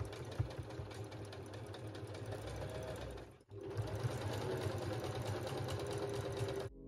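Domestic sewing machine stitching lace trim onto thin merino-wool knit, running at a steady rapid pace. It pauses briefly about three and a half seconds in, then runs again and stops near the end.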